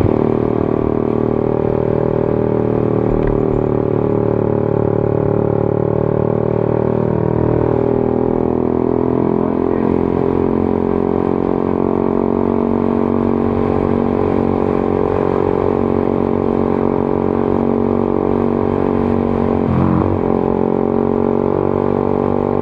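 Honda CBR150R's single-cylinder engine running through an aftermarket exhaust while riding at steady speed. The note holds steady, shifts in pitch around the middle, and dips briefly about twenty seconds in.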